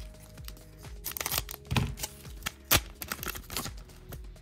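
A trading-card pack's wrapper being torn open and crinkled: scattered crackles, with two sharper rips partway through.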